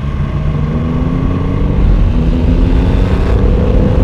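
Triumph Rocket 3 R Storm's 2,458 cc three-cylinder engine accelerating hard, its pitch climbing, dropping at an upshift about two seconds in, then climbing again, louder, in the next gear. Wind rush on the helmet-mounted microphone is heard under the engine.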